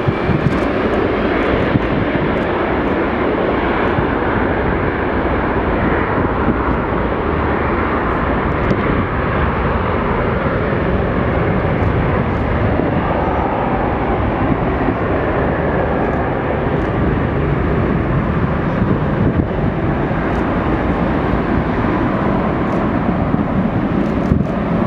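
McDonnell Douglas MD-80 jet running its two rear-mounted Pratt & Whitney JT8D turbofans as it rolls down the runway, a loud, steady engine noise.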